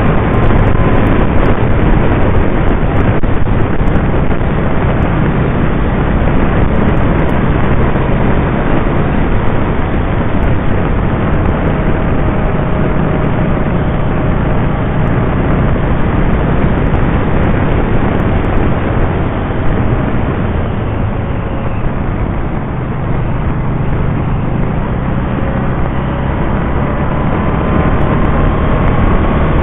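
Can-Am Spyder RT three-wheeled motorcycle cruising at road speed, heard from an onboard camera: steady rush of wind and road noise over the engine, whose pitch slowly dips and rises again.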